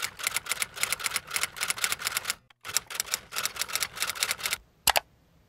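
Typewriter keystroke sound effect: rapid, even clicking of about seven keys a second. It pauses briefly about two and a half seconds in, and ends with one louder clack near the end.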